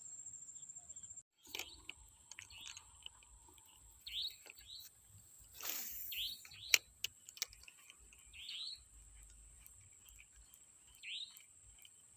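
Small birds chirping: a handful of short, rising chirps spread out over a faint steady high whine, with a brief whoosh about six seconds in and a sharp click just after it.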